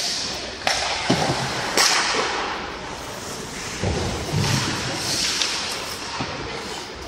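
Ice hockey play: sharp cracks of stick and puck about a second and two seconds in, heavier thuds against the boards around four seconds in, and the steady hiss of skate blades on the ice.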